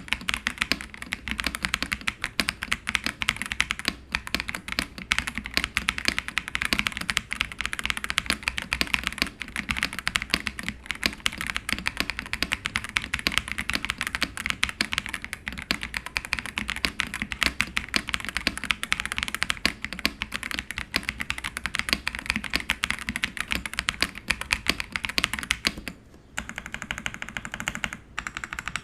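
Typing on an Ajazz AK820 mechanical keyboard with Green Plum switches: a fast, dense stream of key clacks. It dips briefly and goes softer about two seconds before the end.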